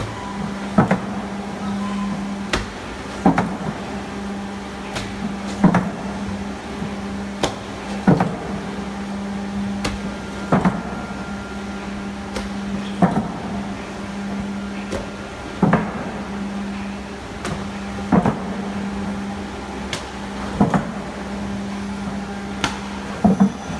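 Kaolin filter press machinery: a steady motor hum with a sharp knock repeating about every two and a half seconds.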